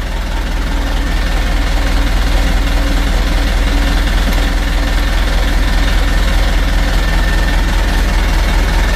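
An engine running steadily at idle: a constant low drone with an even fine pulse.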